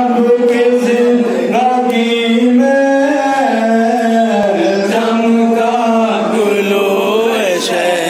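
A man reciting a noha, a Shia lament for Imam Husayn, chanting the verse in long held notes that step and bend in pitch, with no instruments.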